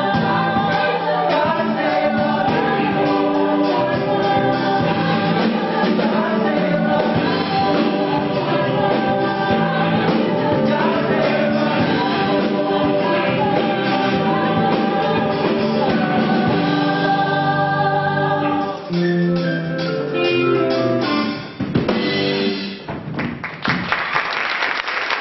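A musical-theatre cast singing in chorus with a live pit band. The song thins out and ends a few seconds before the end, and audience applause breaks out.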